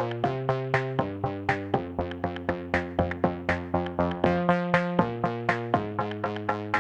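Amazigh instrumental music: a quick, even run of sharply struck notes, about four a second, over a held bass.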